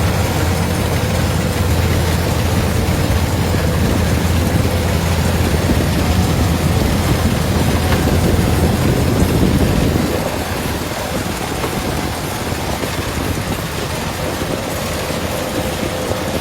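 Kubota DC-105 combine harvester running steadily, a loud machine drone with a deep rumble. About two-thirds of the way through, the deep rumble drops away and the machine gets a little quieter.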